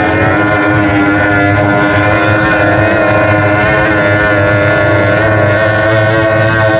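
Outboard engines of Super E racing runabouts running at racing speed as the boats pass close. A loud, steady, high-pitched engine drone with a slight waver in pitch.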